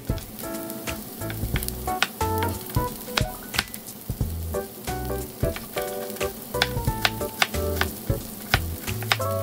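Chef's knife chopping carrots on a bamboo cutting board: a run of irregular, sharp knocks, over background music.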